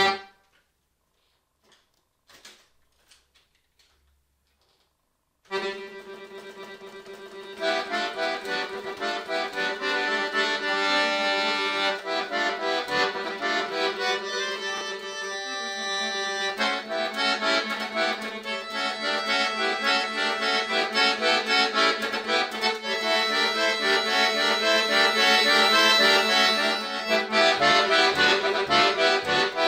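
Chromatic button accordion: a chord cuts off, then about five seconds of near silence. About five and a half seconds in, playing resumes with a held low drone, and a fast, busy melody joins over it about two seconds later and runs on, growing louder toward the end.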